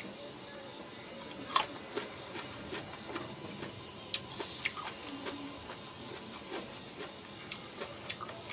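Eating sounds: a fork clicking against a plate as mango slices dusted with chili salt are speared, and the mouth chewing them, with a sharp click about one and a half seconds in. A steady high-pitched insect trill runs behind.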